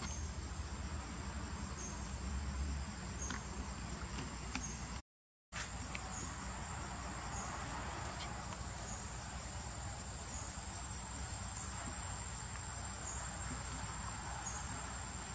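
Steady high-pitched drone of insects, with a brief complete dropout about five seconds in.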